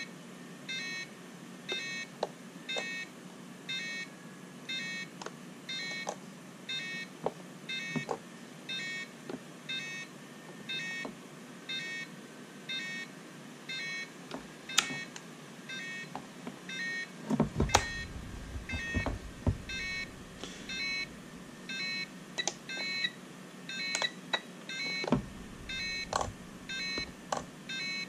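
Turnigy TGY-i6 radio transmitter beeping a repeating warning, a short high beep about one and a half times a second: its alarm to put all switches in their up position and lower the throttle. Clicks of its switches and sticks being worked, with a few louder knocks from the case being handled past the middle.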